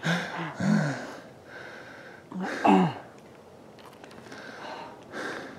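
A person panting and wheezing close to the microphone: heavy, hoarse breaths, with a couple of short breathy sounds near the start and about halfway through, the second dropping in pitch.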